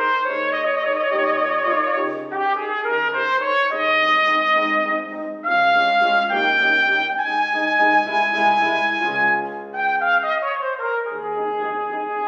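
Trumpet playing a lyrical concerto melody of sustained notes, some with vibrato, over grand piano accompaniment. A long held trumpet note lasts from about six to nine seconds in while the piano chords change beneath it.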